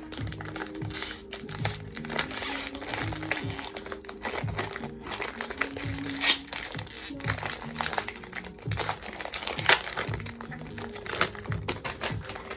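Blind-box packaging crinkling and rustling as it is opened by hand, with background music underneath.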